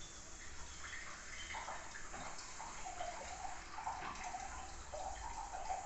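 Water running into a glass, a wavering pitched gurgle that starts about a second and a half in.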